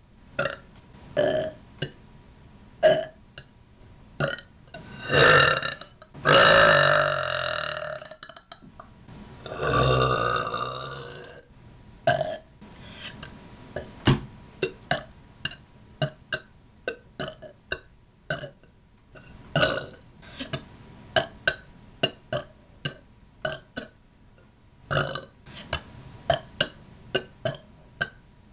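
Women burping loudly over and over: a few long belches in the first ten seconds or so, then a quick string of many short burps.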